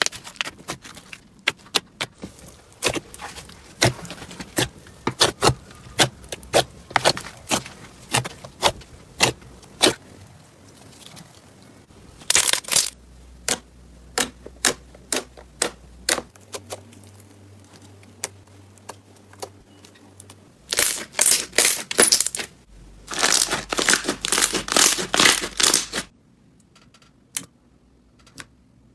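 Slime being pressed and poked by hand, making quick sharp clicks and pops, with several denser bursts of crackling in the second half.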